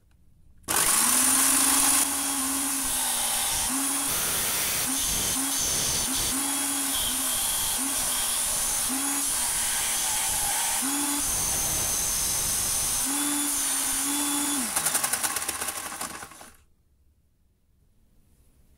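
Disc sander running with a thin perforated steel strap held against its abrasive disc, grinding the strap's end to a point: a steady grinding hiss with the motor's hum coming and going as the metal is pressed on. It starts suddenly about a second in, and near the end the hum falls as the motor winds down and the sound dies away.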